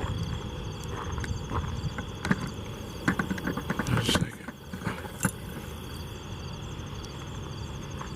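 Night insects chirping in evenly repeating pulses over a steady high trill and a low rumble. A cluster of short crackles and rustles comes about two to four seconds in.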